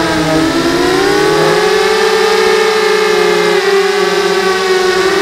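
Y6 mini hexacopter's six motors and propellers whirring in flight. The pitch dips and climbs back within the first second and a half, then holds with small wavers as the throttle changes.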